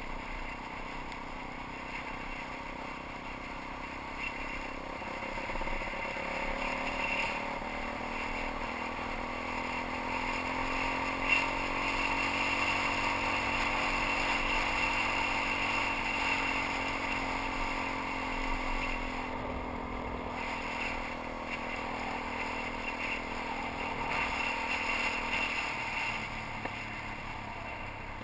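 Suzuki DR-Z400's single-cylinder four-stroke engine running as the bike rides along a gravel road. Its pitch climbs about five seconds in, holds, then eases off, with a single sharp click about eleven seconds in.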